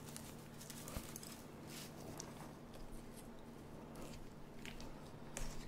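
Faint pattering of chili flakes shaken from a glass spice bottle onto the food, then a wooden spoon stirring thick spicy tteokbokki sauce with small wet clicks and squelches.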